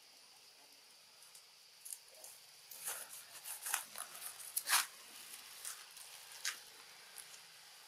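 Scattered short rustles and crackles of leaves and twigs as macaques shift on a branch, busiest in the middle and loudest just before the five-second mark. A faint steady high drone runs underneath.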